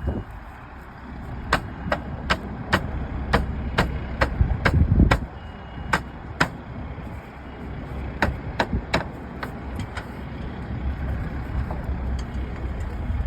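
Hammer tapping on metal during a slate roof repair: a run of sharp, separate taps, roughly two a second, broken by a short pause midway, over a steady low rumble.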